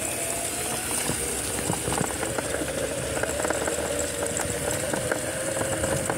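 Electric motorbike's motor whining steadily under way, its pitch creeping slightly higher, with the bike rattling and clicking as it rides over rough grass.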